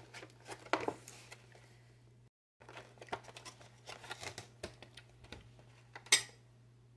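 Thin plastic clamshell tub of peanuts crinkling and clicking as it is handled, with the nuts rattling inside, and one sharp click about six seconds in. The sound cuts out for a moment a little after two seconds in.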